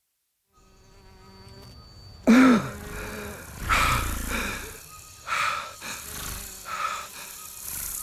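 Insects buzzing close by in several loud swells, the first and loudest about two seconds in with a pitch that rises and falls as it passes, over a faint forest ambience that fades in out of silence.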